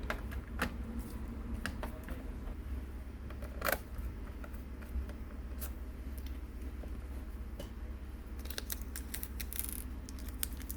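Scattered clicks and light taps from handling the laptop's plastic parts, a few at a time with a cluster near the end, over a steady low hum.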